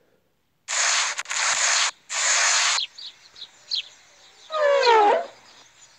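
Wiping and rubbing on soapy window glass: two bursts of scrubbing, then a few faint squeaks and a longer squeak that falls in pitch about five seconds in.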